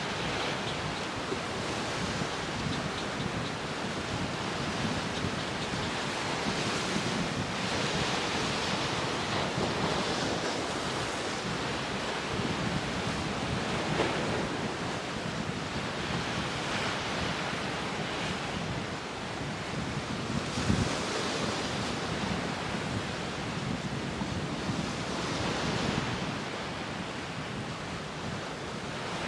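Rough surf breaking and wind blowing across the microphone, the waves swelling and crashing every few seconds. A sharp knock comes about halfway through and another a few seconds later.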